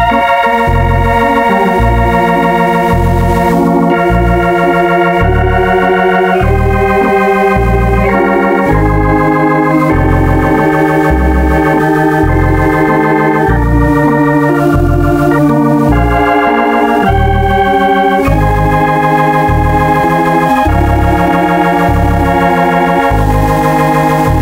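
Organ music with sustained chords over a steady walking bass line, the chords changing every second or two.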